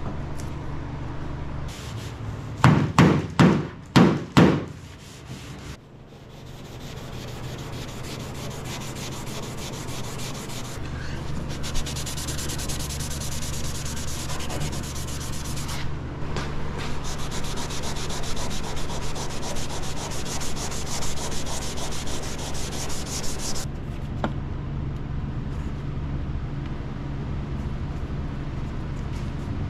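Sanding on a primed car fender: a steady rasping scrub that builds up about six seconds in and carries on, over a constant low hum. Near the start, five loud short bursts in quick succession are the loudest sounds.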